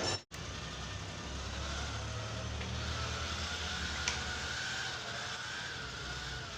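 Electric heat gun running steadily, a low motor hum and airflow with a faint steady whine, used to heat wire mesh into the plastic. The sound drops out briefly just after the start.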